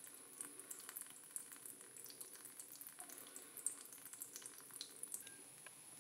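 Faint thin stream of water from a sink faucet trickling into the basin, with scattered small drip ticks.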